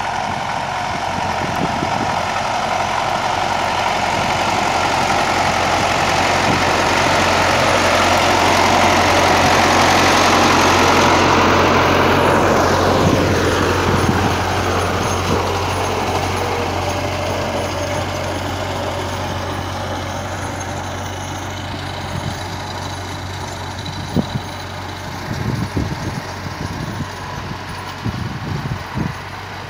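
MTZ-50 tractor's four-cylinder diesel running steadily while it mows with a KSF-2.1 drum mower and drives past: it grows louder, peaks about ten to twelve seconds in, drops in pitch as it goes by, then fades as it moves away.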